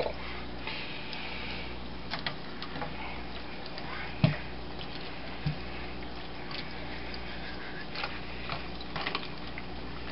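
Knife stabbing and cutting into a pink salmon in a stainless steel sink: scattered short wet knocks and scrapes, the loudest a thump about four seconds in, over a steady low hum.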